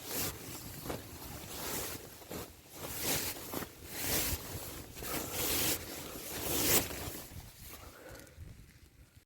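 Nylon fabric rustling and flapping in a run of loud bursts, over a steady low rumble of wind on the microphone.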